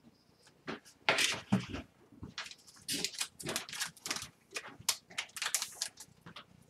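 Trading cards in clear plastic holders being handled on a tabletop: a string of irregular light clicks, taps and rustles of plastic.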